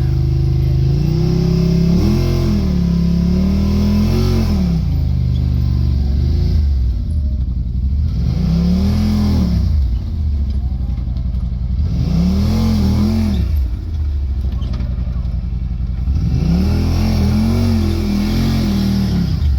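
Side-by-side UTV engine revving in repeated surges, its pitch climbing and falling back four or five times with steadier low running between, as the machine works its way up a rocky waterfall climb under load.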